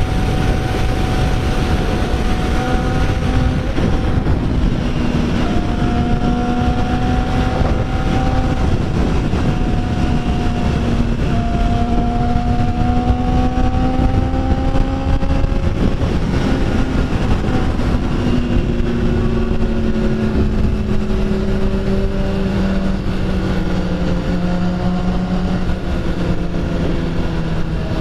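Motorcycle engine running while riding, its note rising and falling slowly with speed and dropping lower in the second half, over heavy wind noise on the microphone.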